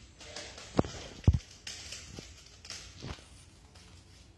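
Kitten playing with a crumpled bag on a hard floor: short crinkling rustles, with two heavy thumps about a second in and softer knocks later.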